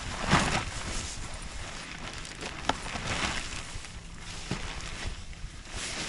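Pop-up cube ice-fishing tent being opened: its fabric rustles and flaps in three swells, the loudest about half a second in. Boots crunch on snowy ice, with a couple of sharp clicks in between.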